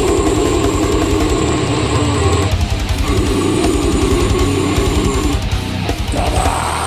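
Instrumental break of a heavy rock backing track: distorted electric guitar chords over a steady fast drum beat.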